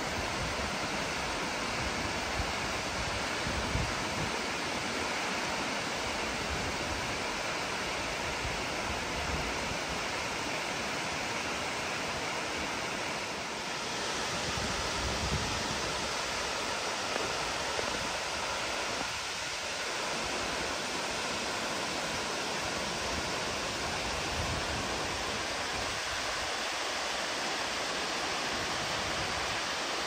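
Steady rushing of a tall waterfall falling down a rock cliff: an even, unbroken roar of white water.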